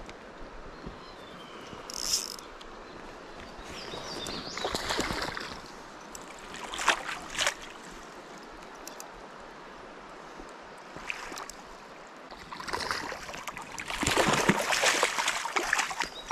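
Splashing from a small hooked rainbow trout being played and landed in a stream, over the stream's steady flow. There are several short bursts of splashing, and the longest and loudest comes near the end.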